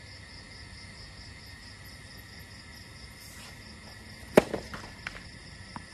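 A tennis ball struck hard by a racket on a serve about four seconds in, followed by a few fainter ball hits and bounces. Underneath, night insects chirr steadily in a pulsing rhythm.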